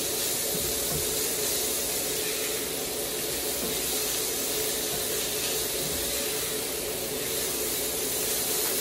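Ground pork and sliced onion sizzling in hot oil in a nonstick frying pan as they are stirred: a steady hiss.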